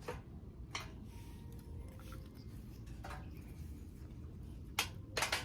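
A few short, sharp clicks and knocks, two close together near the end, from handling gear while setting up a campfire, over a steady low background rumble.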